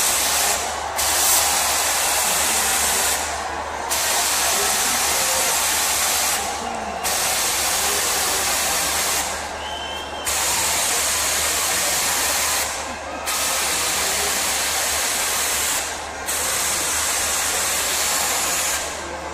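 Ground pyrotechnic fountains spraying sparks with a loud, steady hiss. The hiss drops out briefly about every three seconds, then comes back.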